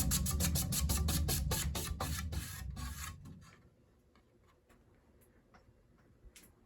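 Antique Westinghouse ceiling fan coasting down from full speed: a rhythmic beat that slows and fades out about three and a half seconds in, followed by near silence with a few faint clicks.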